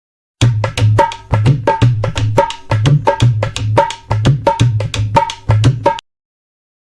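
Drum rhythm: a fast, even run of sharp strikes with a deep bass stroke and a higher ringing tone, about two to three strokes a second. It starts after a brief silence and cuts off abruptly about a second before the end.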